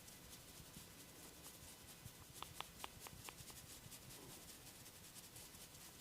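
Faint rubbing and scratching of hands on oiled skin and hair during a neck and head massage. About halfway through comes a quick run of about six short, high chirps.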